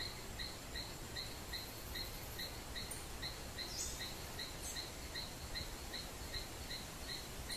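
Outdoor ambience: a steady hiss with a short chirp repeating evenly about two and a half times a second, and a couple of brief higher calls in the middle.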